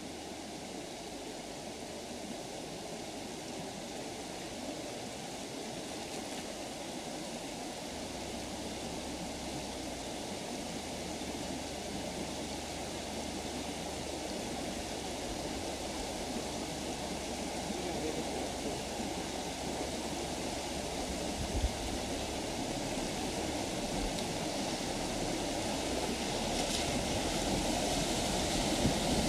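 Steady rush of river water flowing across a flooded crossing, slowly growing louder, with a low rumble joining about eight seconds in.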